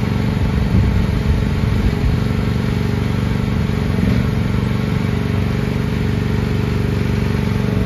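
The 13.5 hp gas engine of an FF15 mini excavator running steadily.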